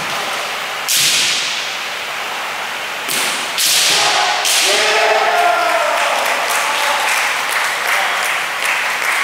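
Kendo sparring: bamboo shinai cracking against armour and each other, one sharp strike about a second in and a cluster of several around three to four and a half seconds in, echoing in a large hall. Drawn-out kiai shouts from the fencers sound in the middle, with smaller clacks and shuffling near the end.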